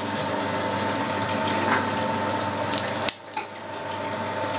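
Electric meat grinder running steadily under load, mincing beef through a fine plate, with a sharp click about three seconds in.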